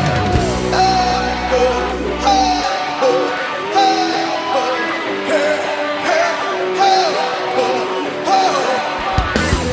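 Gospel band music without words: a lead melody with bending, sliding notes over drums. The low bass drops out about three seconds in and comes back near the end.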